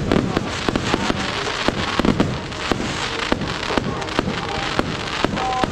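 Fireworks going off all around: a dense, irregular run of sharp bangs and cracks over a constant wash of more distant explosions.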